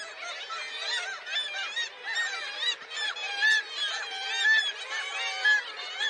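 A colony of black-legged kittiwakes calling, many overlapping rising-and-falling calls at once, with a few louder calls standing out in the second half.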